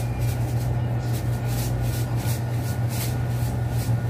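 Liquid poured from a plastic bottle into a steel pot of marinade on a gas stove, with faint repeated splashing, over a steady low hum that is the loudest sound throughout.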